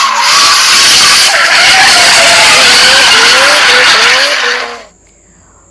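Car sound effect: a fast car with tyres squealing over a loud rush of noise, the squeal's pitch wavering up and down, cutting off suddenly near the end.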